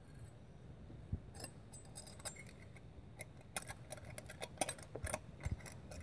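Faint, scattered light metallic clicks and clinks from a feeler gauge's thin steel blades being handled. They start about a second and a half in and come more often toward the end.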